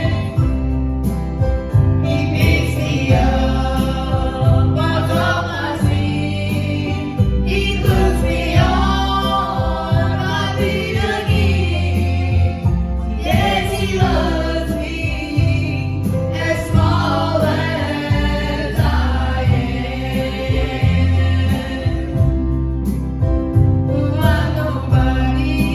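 A gospel group singing a hymn in harmony with instrumental accompaniment and a strong bass line.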